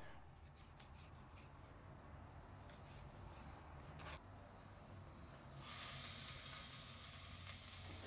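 Chicken organs sizzling in a hot skillet: a steady frying hiss that starts about two-thirds of the way in. Before it, a few faint clicks of a knife cutting the organs on a plastic cutting board.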